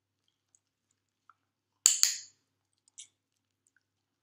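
Dog-training clicker pressed once about two seconds in: a sharp double click from the press and release. It is the marker signal of clicker training, telling the dog that a treat is coming.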